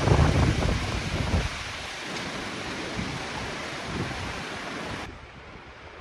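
Storm wind rushing through tall conifers. Heavy wind buffeting on the microphone gives a loud low rumble for the first second and a half, and the noise cuts off suddenly about five seconds in to a quiet outdoor hush.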